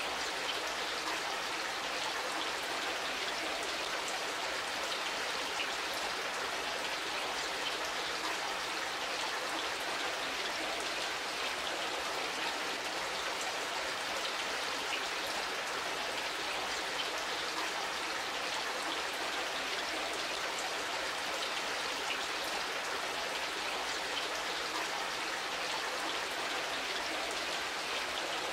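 Steady splashing of running water, with faint scattered droplet ticks.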